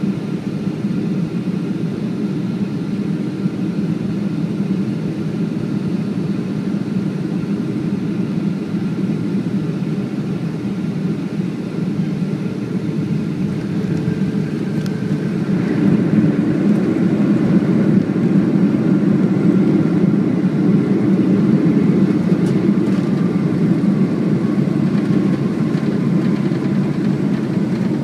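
Cabin noise heard inside a Boeing 757-200 beside the wing on landing: a steady rush of engine and airflow noise. About sixteen seconds in it grows louder as reverse thrust builds after touchdown, then eases a little near the end as the jet slows on the runway.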